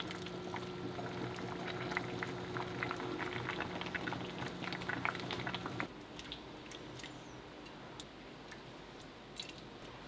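Food sizzling and crackling in a frying pan over a steady low hum. About six seconds in, the hum cuts off and the crackling thins to a few scattered ticks.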